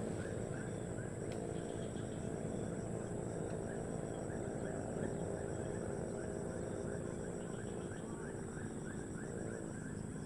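Outdoor ambience: a steady high thin whine with many short chirps repeating a few times a second, over a low even rumble.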